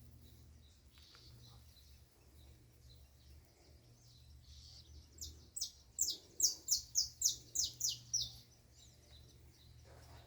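A bird singing: a quick run of about ten sharp, falling high notes, about four a second, starting around five seconds in, with fainter chirps before it and a low steady hum underneath.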